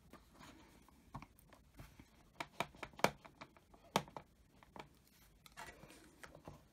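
Light taps and clicks as an ink pad is dabbed onto a rubber stamp and plastic stamping tools are handled and set down, with a soft rustle near the end.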